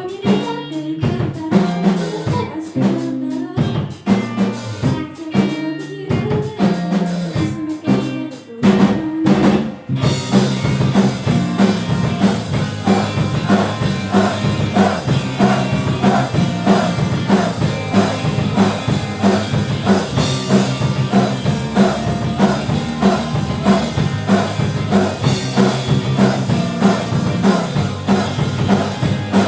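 Rock band playing live, led by a drum kit: short stop-start hits for about the first ten seconds, then the whole band comes in together with a steady beat.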